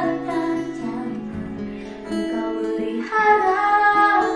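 A woman singing a slow pop ballad in Indonesian over guitar accompaniment, holding long notes.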